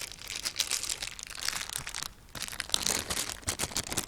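Plastic packaging crinkling and crackling as it is handled, in quick irregular crackles with a brief pause about two seconds in.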